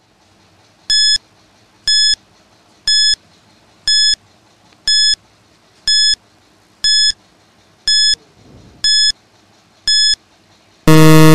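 Countdown-timer sound effect: ten short high electronic beeps, one each second, ending in a longer, louder, lower buzzer tone when time runs out.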